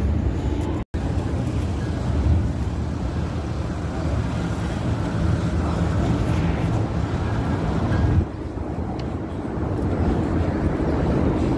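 City street traffic noise, a steady low rumble that cuts out completely for a moment about a second in and eases a little near the end.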